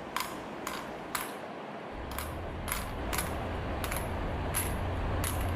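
A series of sharp, short clicks, roughly two a second and slightly uneven, over a steady low hum.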